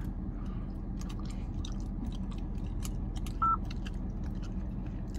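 Apeman C860 dash cam giving one short electronic beep about three and a half seconds in as its buttons are pressed, amid scattered light clicks of handling, over a steady low hum.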